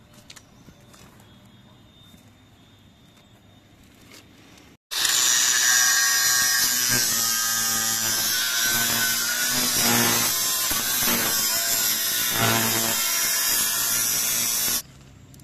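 DeWalt angle grinder cutting into a steel drum, the abrasive disc grinding through the sheet metal to open it. The grinder starts suddenly about five seconds in after faint sounds, runs loud and steady for about ten seconds, and cuts off abruptly.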